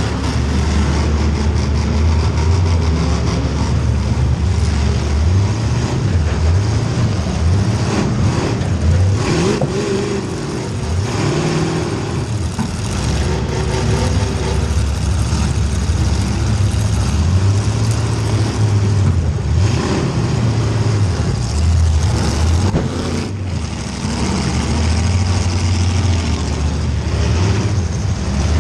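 Race car engine running hard at racing speed, revving up and down, with the sound easing briefly about every twelve seconds.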